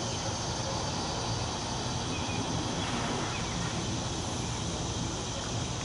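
Steady outdoor background noise: a constant hiss with faint high insect trilling.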